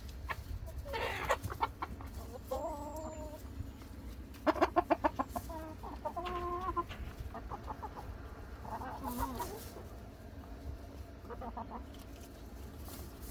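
Chickens clucking and calling, with a few short, pitched squawk-like calls. A loud burst of rapid clucks comes about four and a half seconds in.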